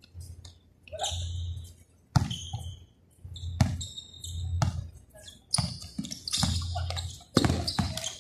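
Basketball bouncing on a hard court during play, with sharp bounces roughly once a second from about two seconds in.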